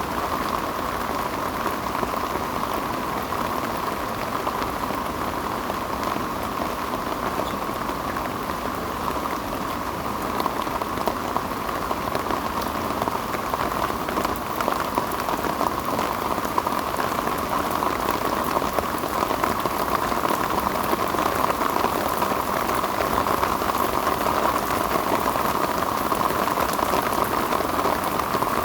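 Heavy rain pouring steadily, a dense patter of countless drops that grows a little heavier partway through.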